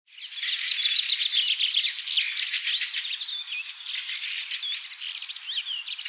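Many songbirds chirping and singing at once: a dense chorus of quick, overlapping chirps and whistled notes sliding up and down, fading in at the very start.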